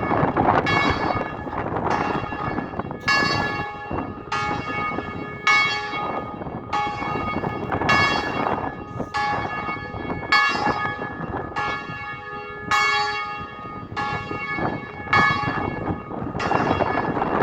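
Church bells ringing in a continuous sequence, one strike a little under every second, with bells of different pitches taking turns. Steady wind noise runs underneath.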